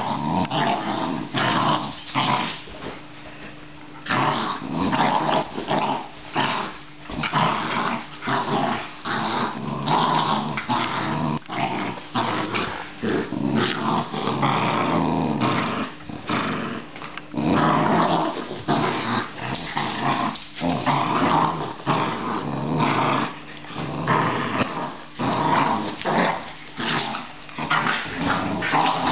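Australian terriers growling almost without pause during a rough play-fight and tug-of-war, with a short lull about three seconds in.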